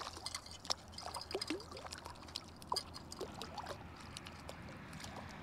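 Small splashes and trickling water at the water's edge, with many light scattered ticks, as a hooked trout is unhooked and released back into the pond.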